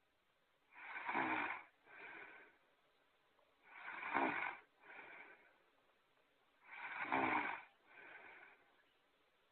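Looped cartoon snoring sound effect: three snores about three seconds apart, each a louder snore followed by a softer, shorter one.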